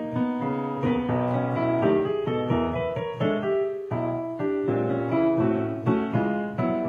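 A blues played with both hands on a digital piano: low bass notes under chords and short runs, changing every fraction of a second.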